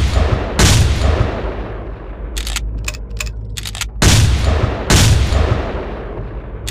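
Sawn-off shotgun blasts, each with a long echoing decay: two in quick succession at the start, then a few sharp mechanical clicks as the gun is reloaded, then two more blasts about a second apart near the end.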